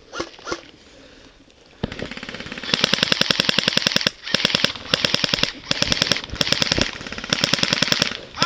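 Airsoft electric rifle firing on full auto, a rapid even stream of clicks. A quieter run starts about two seconds in, then four longer, louder bursts follow.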